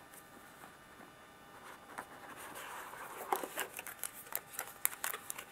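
Paper and cardboard packaging being handled: a soft rustle of a paper insert begins about two seconds in, followed by a run of light clicks and taps as the box parts are moved.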